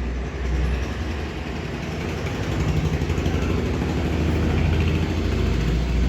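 A motor engine running steadily with a low hum that slowly grows louder, as from a vehicle idling or passing close by.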